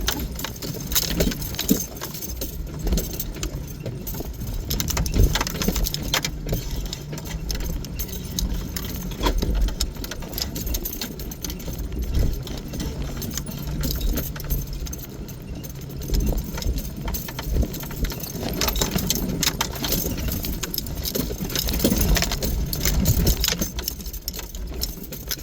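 Off-road vehicle crawling slowly over a rough, bumpy dirt trail, heard from inside the cab: a low engine hum under constant rattling and clinking as the vehicle jolts over the ruts.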